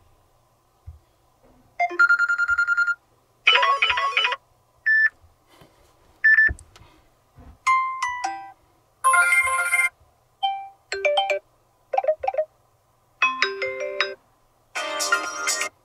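Samsung Galaxy Tab S2 alarm tones played one after another through the tablet's speaker. There are about ten short electronic melodies, each a different tune and each cut off after a second or less before the next begins, starting about two seconds in.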